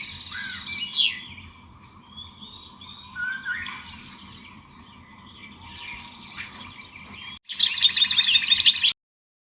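Small birds chirping and singing: a fast, repeated trill that ends in a quick falling note about a second in, then softer scattered chirps and calls. Near the end comes a short burst of loud, busy chirping that cuts off suddenly.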